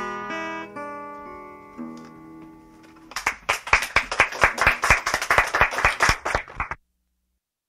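Acoustic guitar's closing notes ringing and fading out. About three seconds in comes a few seconds of hand clapping, which cuts off suddenly.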